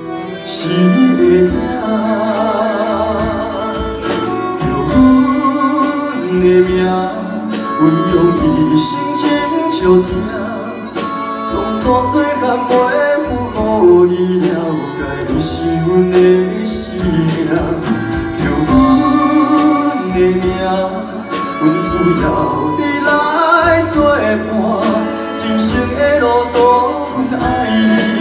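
Male vocalist singing a Taiwanese Hokkien ballad live into a microphone, with vibrato on held notes. A small chamber ensemble of keyboard, violins, cello and drum kit accompanies him.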